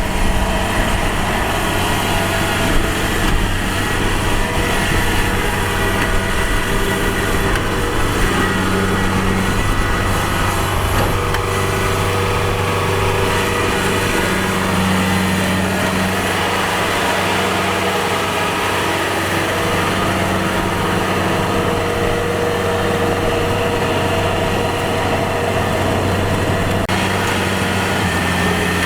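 Kubota DC-70 Plus rice combine harvester running steadily under its diesel engine, the engine note shifting slightly in pitch now and then.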